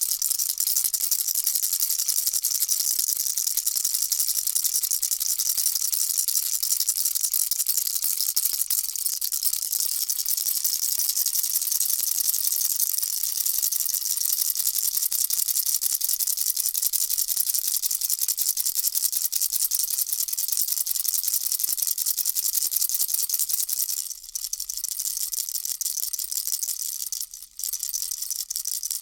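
A baby rattle shaken continuously, a dense rattling of small beads inside, with two short drops in loudness near the end.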